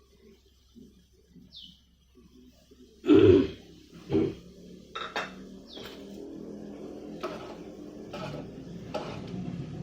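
Two loud throat sounds from a person, about a second apart, then scattered clinks of pots and utensils over a steady hiss that slowly grows louder: a pot of soup water heating toward the boil on the stove.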